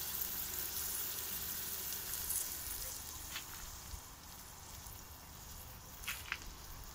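Chopped onions frying in oil and butter in a cast-iron pot over a wood fire: a steady sizzle that grows fainter after about three seconds, with a few faint clicks.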